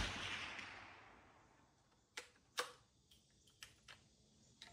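The tail of a Rossi RB22M .22 WMR rifle shot dying away, then a few sharp, irregular clicks as the rifle's bolt is worked to eject the case and chamber the next round.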